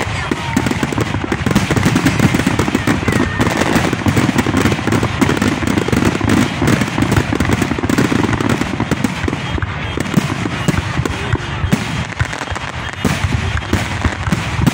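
Fireworks display: a dense barrage of overlapping bangs and crackling, many each second, with no let-up.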